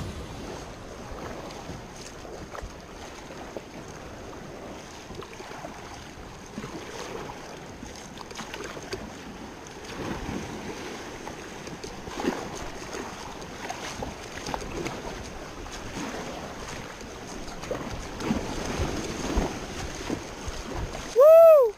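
Kayak paddle strokes in seawater, with water splashing and lapping around a sit-on-top kayak and wind on the microphone. Shortly before the end, a brief, loud tone swoops up and back down.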